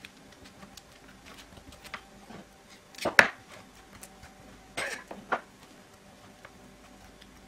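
Table knife spreading herb garlic butter onto baguette slices on a wooden board: soft scrapes and small taps, with a sharper knock about three seconds in and a short scrape and tick about five seconds in.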